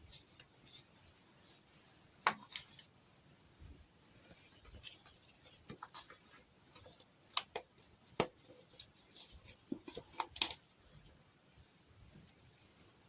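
Scattered sharp clicks, taps and short rustles from doll toys and their packaging being handled and unpacked. A cluster of quick clicks builds to the loudest snap about ten seconds in.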